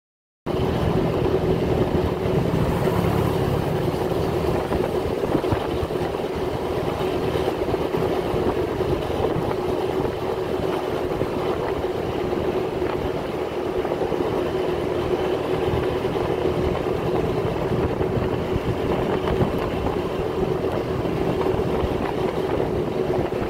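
Honda scooter riding through city traffic: a steady engine hum with road and rushing noise, starting abruptly about half a second in.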